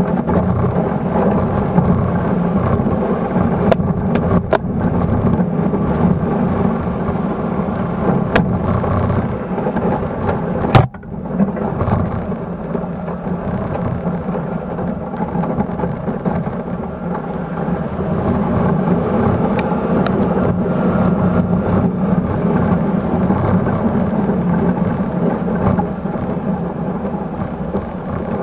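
Suzuki Carry mini truck driving slowly while plowing snow, its engine and tyres running steadily as the plow blade pushes snow, heard from close beside the front wheel. A few sharp knocks break the steady noise, the loudest about eleven seconds in.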